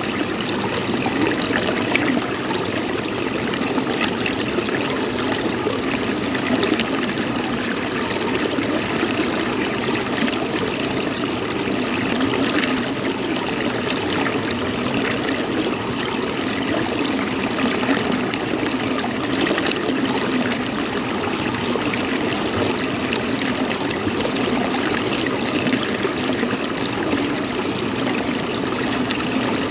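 Water running steadily, an even rushing and trickling with no breaks.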